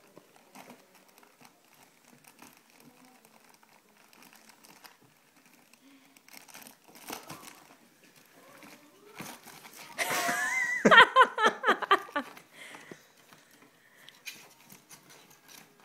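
A ferret rummaging among socks in a wooden drawer: soft rustling and scattered light knocks. About ten seconds in comes a louder burst of high, wavering pitched sound lasting a couple of seconds.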